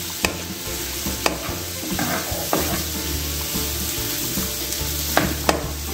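Diced vegetables and ham sizzling in butter in a frying pan over high heat while a wooden spatula stirs them, with a few sharp knocks of the spatula against the pan.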